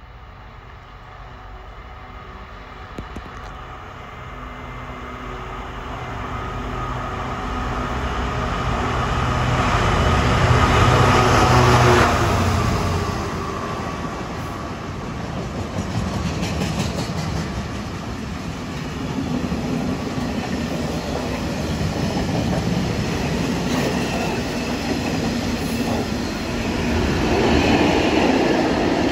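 DB Cargo Class 66 diesel locomotive passing, its engine hum growing louder to a peak about twelve seconds in. A long freight train of steel-coil and covered wagons follows, its wheels rumbling and clicking over the rail joints.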